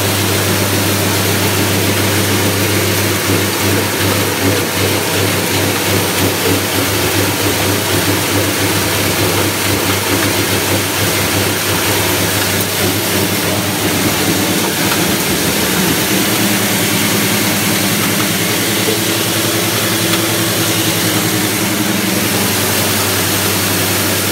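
Honda GX160 single-cylinder four-stroke engine running steadily at a constant speed, driving a stainless-steel coffee huller, with an even rushing noise from the machine over the engine hum.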